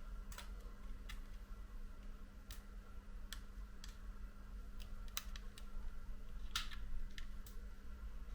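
Scattered faint clicks and ticks of a plastic card prying under the home button flex of a cracked iPhone 7 screen, irregular and a few to the second, over a steady low hum.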